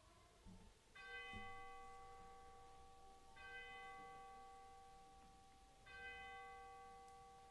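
A bell struck three times, about two and a half seconds apart, each strike ringing on and slowly fading; faint. Rung to mark the entry into worship after a moment of centring breath.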